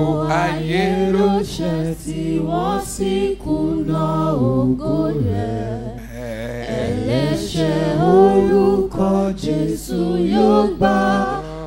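Unaccompanied church hymn singing: a man's voice through the microphone leads and a group of voices sings along, without instruments.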